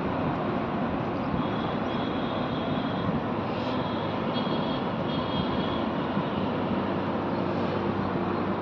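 Small fishing boat's motor running steadily.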